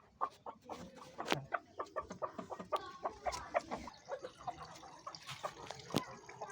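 Aseel chickens clucking: many short, repeated calls, with two sharp knocks, one about a second in and one near the end.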